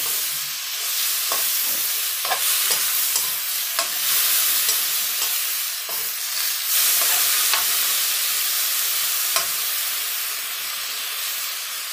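Cauliflower and sausage sizzling in a hot pan as they are stir-fried, with a metal spoon scraping and clacking against the pan at irregular moments.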